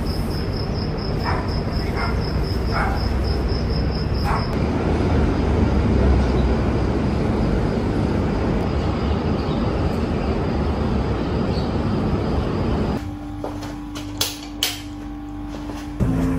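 Steady low rumble of city ambience with a high, evenly pulsed chirping and a few short calls over the first four seconds. About thirteen seconds in it cuts to a quieter room with a steady low hum and two sharp knocks.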